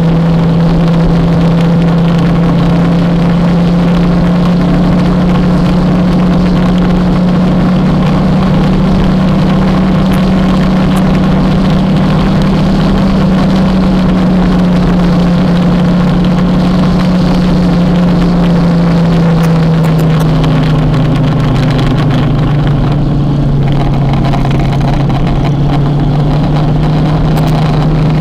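Kawasaki motorcycle engine running steadily under way, with wind and road noise; its note drops a little about two-thirds of the way through.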